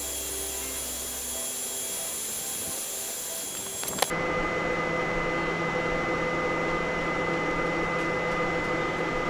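Hot air rework gun blowing a steady hiss while a surface-mount chip is lifted off a MacBook Pro logic board. About four seconds in, with a click, the hiss cuts off and a lower, steadier hum with a held whine takes over.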